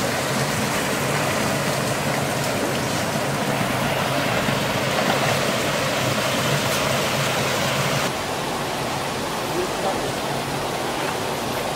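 Shallow rocky stream rushing over rocks and small cascades: a steady rush of water, slightly quieter after about eight seconds.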